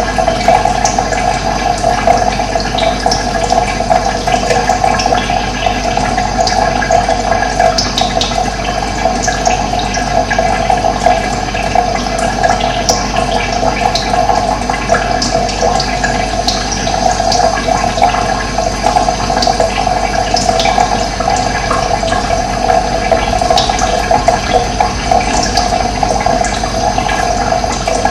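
Running water flowing steadily, with brief high bird chirps now and then.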